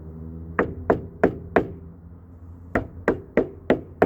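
Knocking on a van's molded fender flare, two quick runs of four knocks, to show it is solid and firmly bonded to the body.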